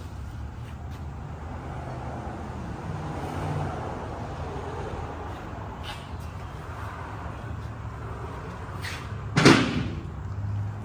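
A steady low hum with a few light knocks, and one loud clunk about nine and a half seconds in.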